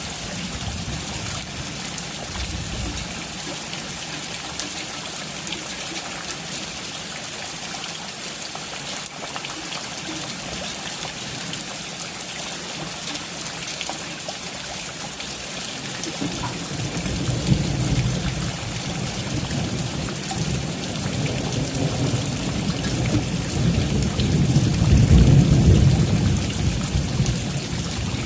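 Steady rain hissing and pattering throughout. About halfway through, a low rumble of thunder builds and is loudest near the end.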